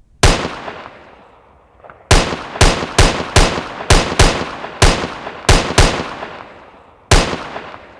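Revolver gunshots, eleven in all, each loud and sharp with a long echoing tail: a single shot just after the start, then, after a pause of nearly two seconds, a run of nine at about two a second, and one last shot about seven seconds in.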